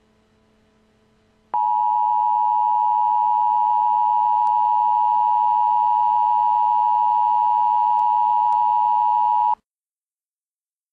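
Emergency Alert System attention signal: a steady, loud two-tone alarm of 853 and 960 Hz sounded together. It starts abruptly about a second and a half in over a faint hum, holds for about eight seconds, then cuts off suddenly.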